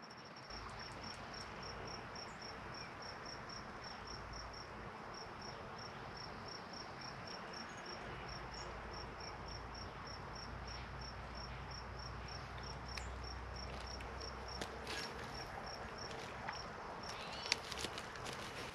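Steady rush of fast-flowing river water with wind rumbling on the microphone, and a high, thin chirp repeating evenly a little over three times a second throughout. A few sharp clicks come near the end.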